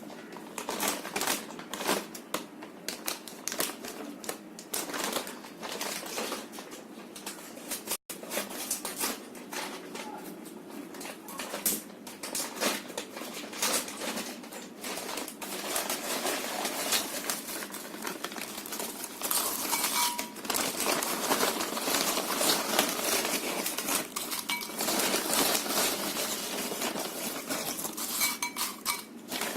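Potato chips poured from their packet into a bowl: a dense, continuous clatter and rattle of crisp chips tumbling against the bowl and each other.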